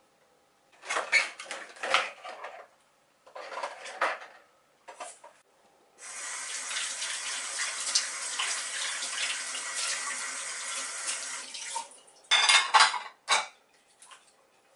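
Kitchen tap running into a sink for about six seconds, with bursts of dishes clattering before it starts and a short, loud clatter of dishes just after it stops.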